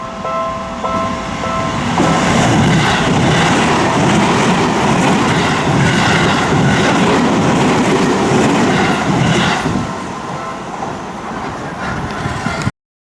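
Level-crossing warning bell sounding in repeated tones, then a Seibu Ikebukuro Line electric train passing over the crossing from about two seconds in, its wheels clacking in groups over the rail joints. The train noise eases off about ten seconds in, and the sound cuts off suddenly just before the end.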